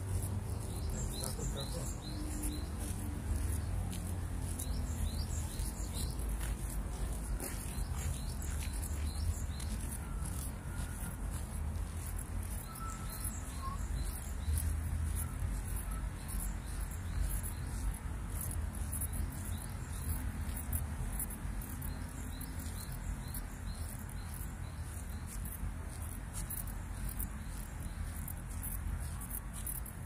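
Insects calling in a fast, high-pitched pulsing buzz, with birds chirping now and then, over a steady low rumble.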